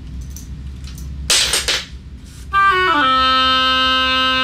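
A short rush of breath, then an oboe plays a quick stepwise run down to a low C and holds it steady. It is the low C test for the F-sharp to G-sharp trill adjustment.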